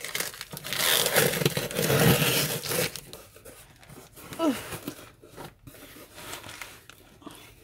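Packing tape ripped off a corrugated cardboard box in a long tearing pull over the first three seconds, followed by quieter rustling and scraping as the cardboard flaps are opened.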